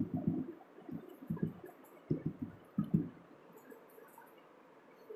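Whiteboard marker drawing short dashes on a whiteboard: quick clusters of brief rubbing strokes through the first three seconds, then only a few faint ticks.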